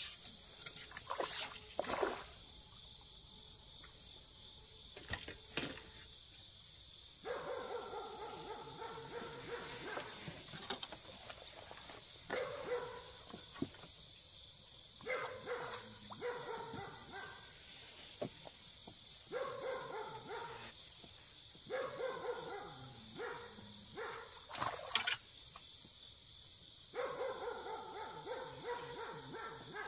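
A dog calling in about six bouts of one to two seconds each, over a steady high-pitched background drone.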